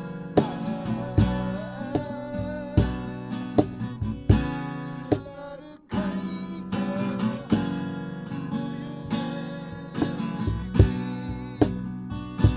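Acoustic guitar strummed in a steady rhythm, with a wavering melody line above the chords in the first few seconds; the playing breaks off for a moment about halfway, then the strumming resumes.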